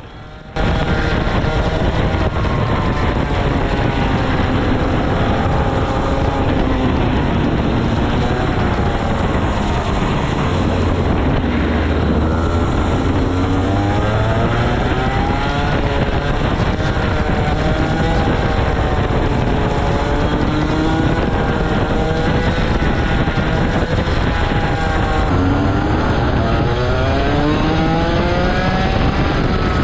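Rotax Max Senior 125cc two-stroke kart engine at racing speed, its pitch climbing and dropping again and again as it revs out on the straights and falls back for the corners. It starts abruptly about half a second in.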